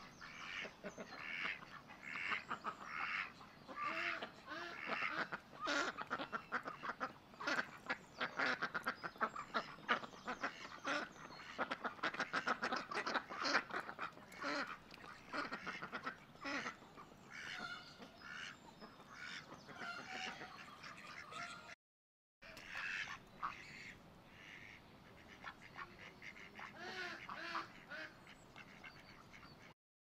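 Ducks quacking over and over in a dense chorus of overlapping calls, with chickens clucking among them. The calling is busiest and loudest in the first half, thins out later, and is broken by a brief silence about two-thirds of the way through.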